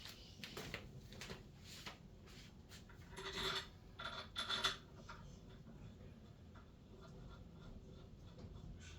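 Light handling sounds from working with greased ARP connecting-rod bolts: scattered small scrapes, rubs and clicks, with two louder scraping stretches about three and four and a half seconds in.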